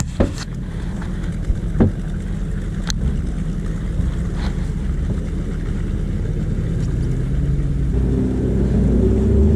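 Bass boat's outboard motor running steadily as the boat travels across the lake, with a few sharp knocks in the first three seconds; the engine note climbs a little near the end.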